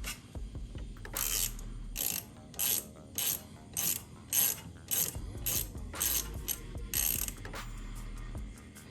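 Hand ratchet wrench driving a bolt: about a dozen ratcheting strokes, roughly two a second.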